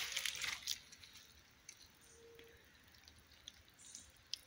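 Quiet ambience with a few faint rustles and clicks in the first second, then near silence broken by a single soft click near the end.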